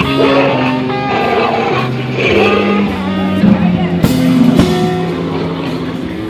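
Music of held pitched notes that change every half second or so, with two sharp clicks about four seconds in.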